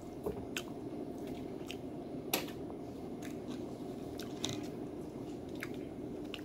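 A person chewing a snack with the mouth closed, with short sharp crunches or clicks about once a second, the loudest about two and a half seconds in, over a steady low hum.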